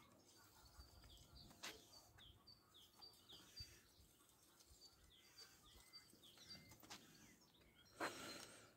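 Near silence: faint bird chirps, repeated short falling calls, with a few faint scrapes and taps of a garden rake drawn over loose soil.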